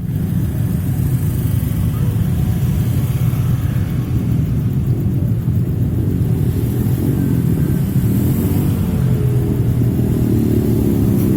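Motor engines running with a steady low rumble.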